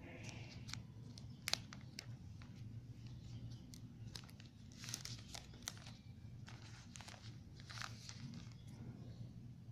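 Thin plastic protective film being peeled off the back of a new smartphone, crinkling and crackling, with a few sharp clicks; loudest about a second and a half in, with more bursts about five and eight seconds in.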